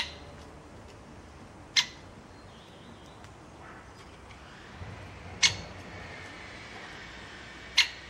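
Great spotted woodpecker at a hanging seed feeder making four sharp, loud ticks, spaced irregularly a second or more apart.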